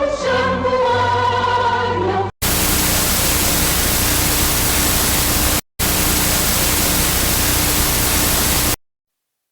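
Choir-like singing for about two seconds, then a sudden cut to loud static hiss with a faint low hum, in two stretches of about three seconds each split by a brief dropout, ending in an abrupt cutoff to silence near the end.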